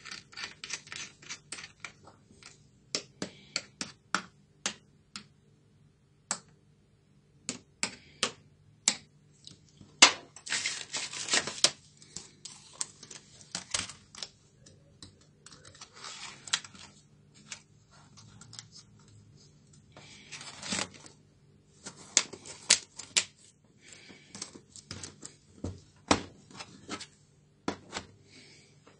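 Irregular plastic clicks, taps and snaps as a Packard Bell EasyNote ZEA laptop is reassembled, with parts fitted back into the case and the keyboard pressed down into place, its keys clattering. There are a few denser bursts of clatter along the way.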